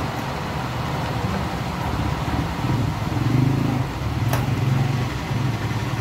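Low, steady rumble of a running engine that swells a little in the middle, with one sharp click about four seconds in.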